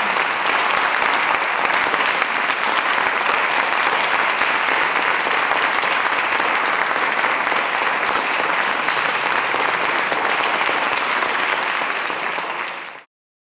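Audience applauding steadily, a dense patter of many hands clapping, cut off suddenly near the end.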